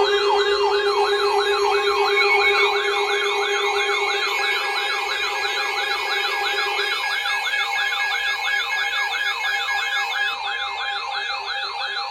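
Electronic warning siren yelping in fast rising-and-falling sweeps, about three a second, layered with steady alert tones. A lower steady tone drops out about seven seconds in.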